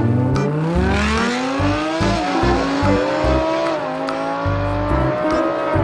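Audi R8 V10 and Lamborghini Aventador S V12 accelerating hard from a standing start. The engine note climbs steadily and dips at a gear change about two seconds in and again near four seconds.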